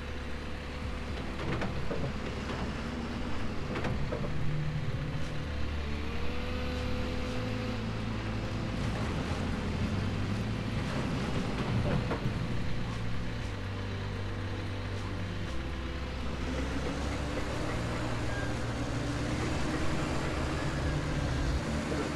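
Excavator engine running under load while digging soil, its low note stepping up and down as it works, with a few faint knocks.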